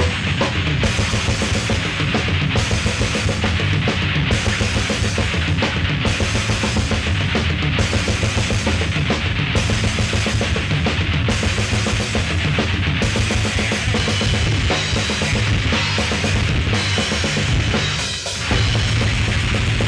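Death metal band playing live: distorted electric guitar, bass and drum kit with fast drumming and repeated cymbal crashes. The music cuts out for a moment near the end and comes straight back in.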